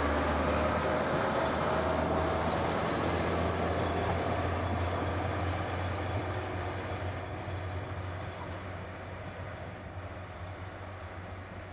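Diesel engines of an FS ALn 668 railcar running under power as it pulls away, a steady low drone that fades gradually into the distance.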